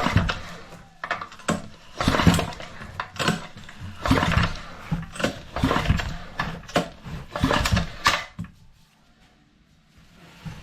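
Honda GX200-clone single-cylinder engine being cranked over by a run of short, quick tugs on its recoil starter rope during a compression test, about a dozen pulls. The pulls stop about eight seconds in.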